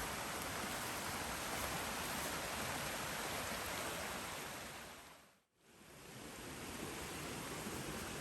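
Steady, even rushing outdoor noise that fades out to silence about five and a half seconds in, then fades back up.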